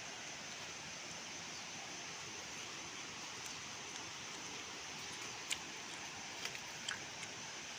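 Steady rushing of a river below, heard as an even wash of noise, with a few sharp clicks and snaps in the second half.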